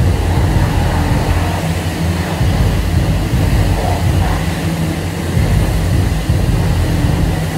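High-pressure water spray from a self-serve car wash wand hitting a car: a steady rush of water over a low rumble.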